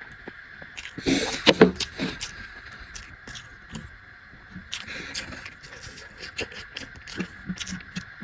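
Close-up eating sounds: chewing with many short clicks and crackles, loudest about a second in, over a faint steady hum.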